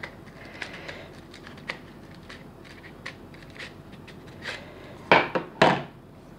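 Polymer airsoft M4 magazine being pried apart by hand: light plastic clicks and rubbing, then two loud plastic snaps about five seconds in, half a second apart, as the shell halves come apart.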